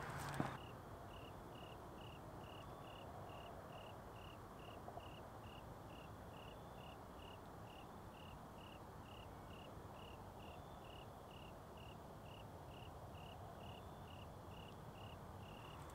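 A cricket chirping faintly in an even rhythm, about three chirps a second, over a soft background hiss.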